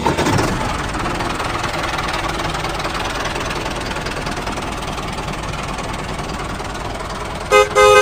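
Tractor engine running steadily, then two short horn toots near the end.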